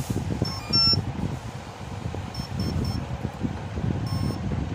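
Brushless drone motor sounding its speed controller's power-up beeps through the windings: a short rising start-up tune, then three short beeps, then one longer beep near the end. This is the controller's arming sequence on connecting the battery. A steady low rumble runs underneath.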